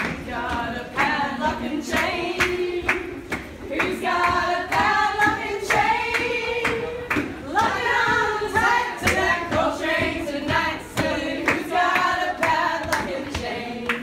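A group of people singing together, with sharp hand claps keeping a steady beat about twice a second, in a tiled metro corridor.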